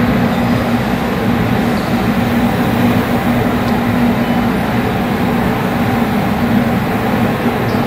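Steady drone of a commercial kitchen's ventilation and a grill on very high heat: an even rushing noise with a constant low hum underneath.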